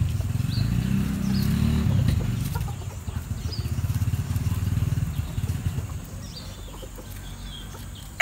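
A low engine rumble with a fast pulse, swelling twice and fading away near the end.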